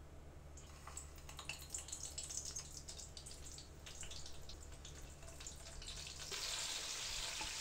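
Hot oil faintly sizzling and crackling in a nonstick pan as stuffed round gourds are set into it, with scattered small pops and taps, the sizzle growing into a steadier hiss near the end.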